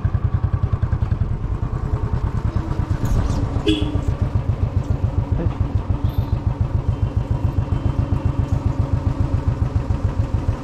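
Motorcycle engine running steadily with an even, rapid low pulsing of about seven beats a second.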